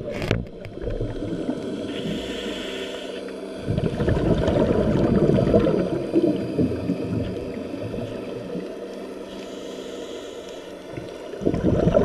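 Muffled underwater water noise, a low rumbling wash that swells and eases, with two quieter stretches where a faint higher hiss comes through.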